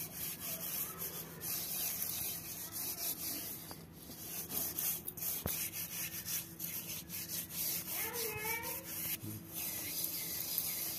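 A hand rubbing and smearing wet mud paste over the outside of a metal kadhai: an irregular, continuous scraping rub of palm and fingers on the coated metal.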